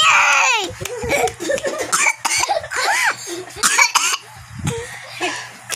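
Young girl crying: a high-pitched wail that breaks off about half a second in, then choppy sobs, catching breaths and short whimpering cries.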